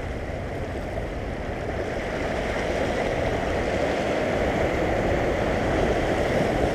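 Sea waves washing and splashing across a low rocky shore, a steady rush that grows a little louder after about two seconds, with wind on the microphone.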